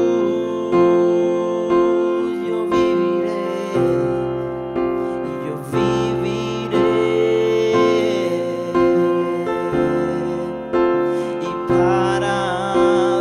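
Slow, gentle worship music on a keyboard with a piano sound: sustained chords, a new one struck about once a second.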